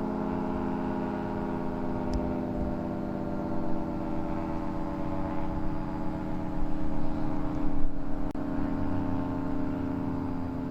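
Federal Signal 2T22 dual-tone outdoor warning siren sounding a steady chord of several held tones. Strong wind buffets the microphone underneath.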